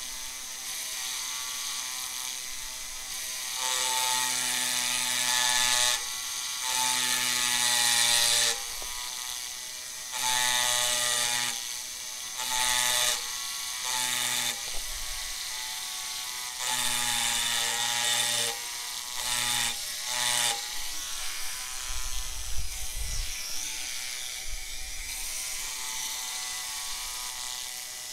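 Handheld rotary engraving tool with a diamond burr, running steadily and cutting into mirror glass in repeated short bursts of a second or two as a signature is engraved.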